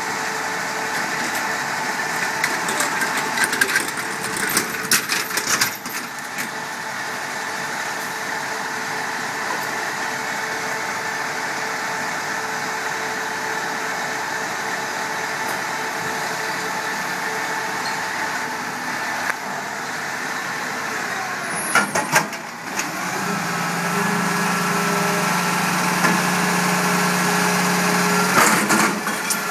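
Iveco front-lift garbage truck's diesel engine idling, with sharp metal clanks and rattles as the steel skip bin is handled at the forks. About three-quarters of the way through, a strong steady hum sets in as the hydraulic arms lift the skip up over the cab. The hum ends in a few more clanks.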